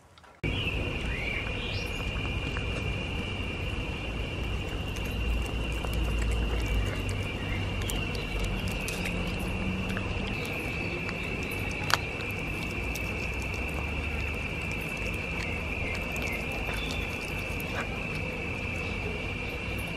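Steady high-pitched drone of insects chirring outdoors, over a low rumble, with a few faint clicks and one sharper click about twelve seconds in.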